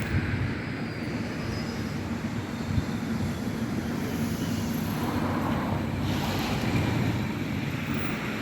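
Nagaragawa Railway diesel railcar running: a steady low rumble with a couple of short knocks.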